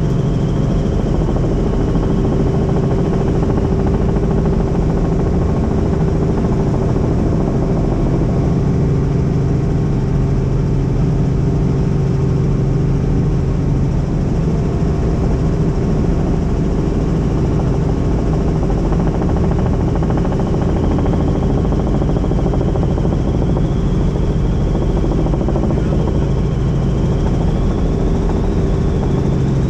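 Helicopter in flight, heard from aboard: steady rotor and turbine engine noise with a fast blade pulse. A faint high whine sits on top near the start and comes back in the last ten seconds.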